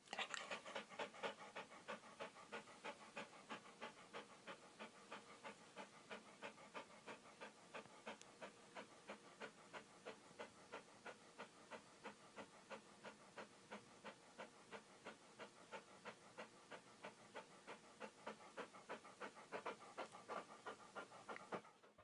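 A dog panting quickly and steadily, about three short breaths a second.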